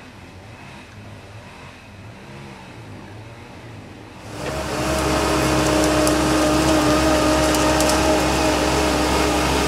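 Faint background for about four seconds, then a sudden cut in of a Bobcat 773 skid-steer loader's engine running loud and steady, with a low rumble and a steady whine over it.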